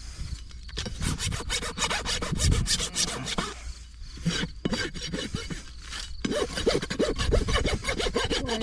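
A farrier's rasp being drawn back and forth across a horse's hind hoof in quick, rhythmic strokes, with a short pause just before halfway.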